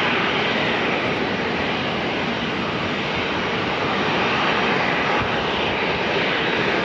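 Jet engines of an Airbus A320 airliner rolling on the runway: a steady, even rushing noise that holds at one level.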